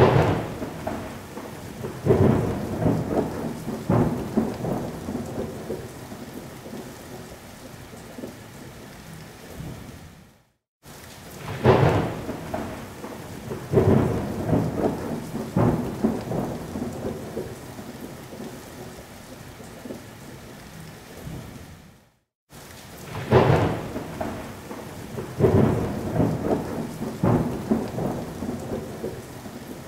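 Thunderstorm recording: steady heavy rain with a sharp thunder crack followed by rolling rumbles of thunder. The same stretch repeats three times, each time ending in a brief silent gap, as a looped track would.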